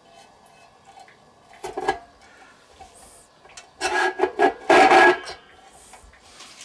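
Metal-on-metal rasping scrapes as the skewer rod of a stainless steel hand-crank spiral potato cutter is pushed through the frame and into a raw potato: a short scrape about two seconds in, then a louder, longer one from about four to five seconds in.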